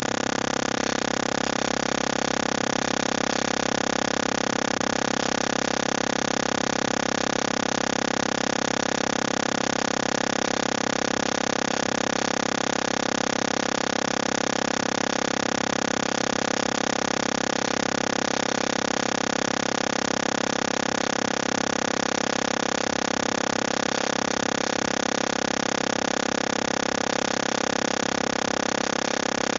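Steady, loud electronic noise with a constant hum of many fixed tones and no speech: an audio fault on a live call, which the presenter puts down to her headset dying.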